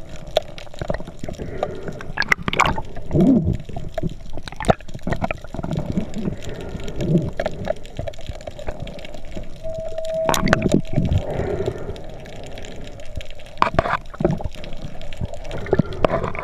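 Underwater sound heard through a camera's housing: water moving and gurgling, with many scattered short clicks and knocks. A brief steady hum comes in about ten seconds in.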